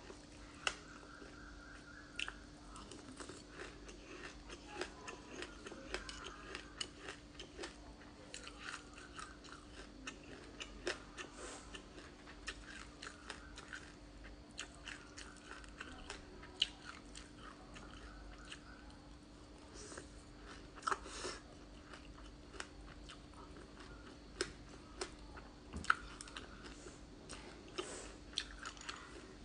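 Close-up crunchy chewing and biting of frozen passionfruit pulp coated in black sesame seeds, with many small sharp crackles and a few louder crunches.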